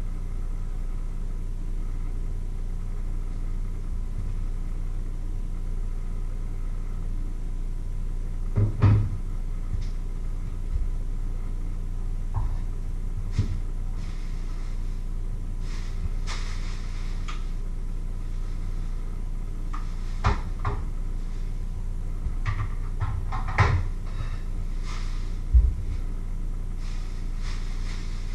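Occasional knocks and clatters of things being handled and set down on a wooden kitchen worktop, the loudest about a third of the way in and a few more near the end, over a steady low hum.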